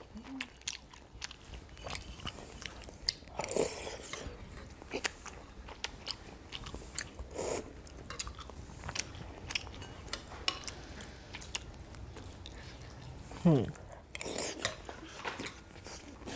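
Someone eating soup: a metal spoon clicks against the bowl, with chewing and mouth sounds. Two short falling sounds stand out, one about three and a half seconds in and a louder one near the end.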